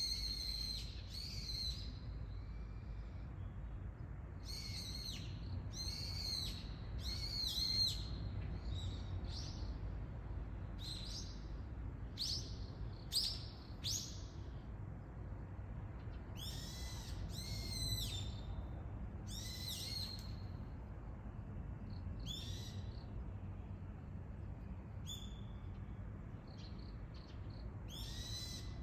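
Wild birds calling repeatedly: short, arching high-pitched notes in little clusters every few seconds, over a steady low background rumble.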